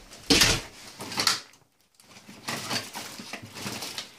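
Rummaging through a bag of toiletries: plastic bottles, tubes and packets rustling and knocking together. There are two louder clatters in the first second and a half, a short pause, then softer rustling.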